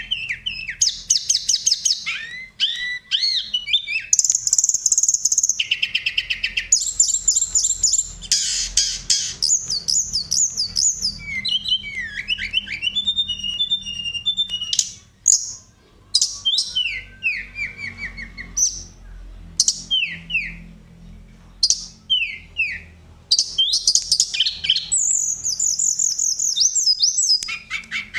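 Hill blue flycatcher singing a long, varied song: fast high trills alternating with runs of short downward-sliding whistles, with a brief pause about halfway through.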